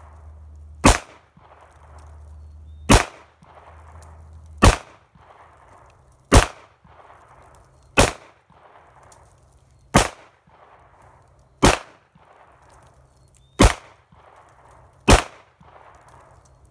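Handgun fired at a slow, steady pace: nine single shots about one and a half to two seconds apart, each followed by a short echo.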